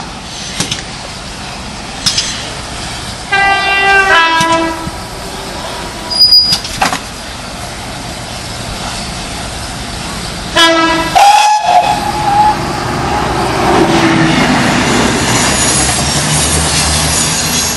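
GWR steam locomotive whistle blowing twice, about seven seconds apart, each blast dropping a step in pitch partway through. Between the blasts a steady rushing noise runs under it and grows louder near the end as the engine moves.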